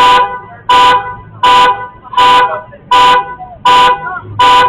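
Loud car horn sounding in an even, repeating pattern: seven short honks of the same length, about three-quarters of a second apart.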